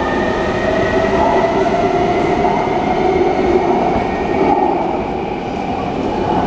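Taipei Metro C321 refurbished train under way: its traction inverter whines in several tones that slowly rise in pitch over the running noise of the car. This is the abnormal inverter noise of a train that has a known inverter fault.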